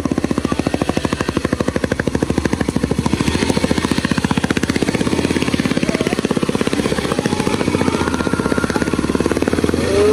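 Motorcycle engine running at low, steady speed, its exhaust beating in rapid, even pulses.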